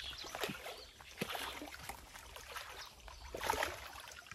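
A hooked fish thrashing at the water surface and splashing in irregular bursts, the loudest splash about three and a half seconds in.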